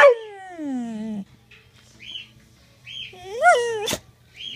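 Boxer dog howling: a long gliding howl that slides down in pitch and breaks off about a second in, then a shorter howl that rises and falls near the end. Faint short high chirps come between, and there is one sharp click just before the end.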